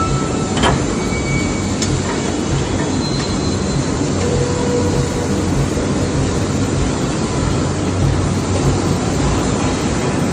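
Pipe-end upset forging machinery running with a loud, steady industrial din. There are two sharp metallic clanks within the first two seconds and a few brief high-pitched squeals over it.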